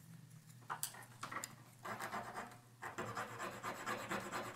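A wooden kebab stick is being filed on a flat metal file to shape its tip into a small screwdriver blade. It makes a dry scratching rasp: a few short strokes at first, then longer runs of back-and-forth strokes from about two seconds in. The sound cuts off suddenly at the end.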